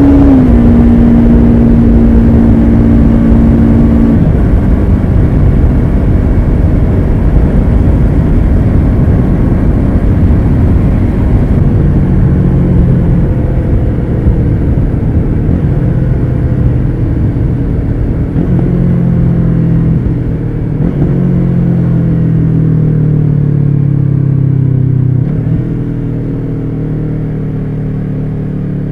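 Yamaha YZF-R3's parallel-twin engine through an Akrapovic carbon slip-on exhaust, running at a steady cruise with heavy wind rumble on the microphone. Late on the engine note falls as the bike slows, and it gets quieter about 25 seconds in.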